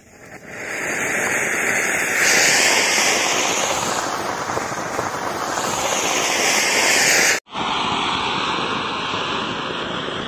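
Firework fountains (cone-shaped flower pots) mounted on a paper model aeroplane, hissing loudly and steadily as they spray sparks. The hiss builds over the first second, grows louder about two seconds in, and drops out for an instant about seven seconds in before going on.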